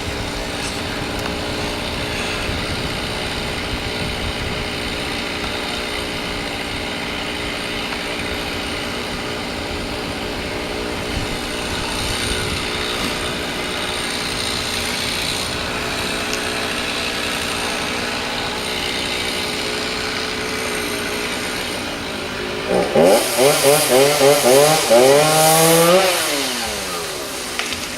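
Chainsaw running steadily, then revved hard near the end in a quick series of about six throttle bursts, its pitch rising and falling before dropping back down.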